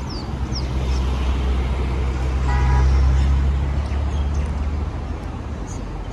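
A heavy road vehicle's engine rumbling as it passes, swelling to its loudest about three seconds in and then fading, with a short horn toot just before the peak.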